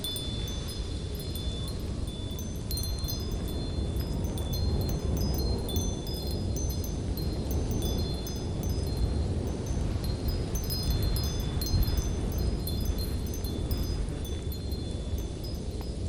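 Steady low wind rumble with metal wind chimes tinkling on and off, many short high ringing notes scattered throughout.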